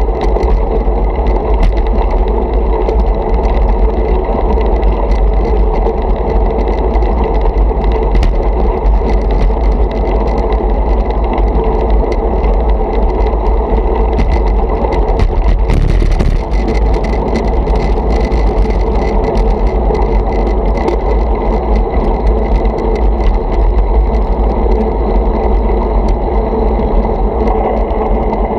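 Wind buffeting and road vibration picked up by a handlebar-mounted camera on a moving road bike: a steady loud rumble with constant small clicks and rattles from the road surface, and a brief louder hiss about halfway through.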